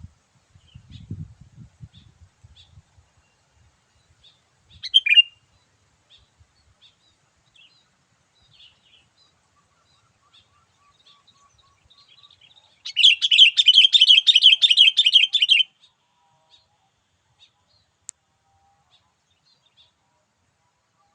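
Sooty-headed bulbul (kutilang) calls: scattered faint chirps, one loud falling call about five seconds in, and a loud, rapid chattering trill lasting nearly three seconds past the middle.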